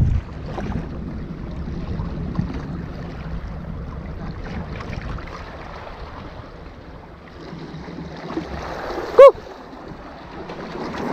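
Sea water washing against the rocks of a breakwater, with wind on the microphone, while a spinning reel is wound in. About nine seconds in, a single brief, loud, high-pitched chirp cuts through.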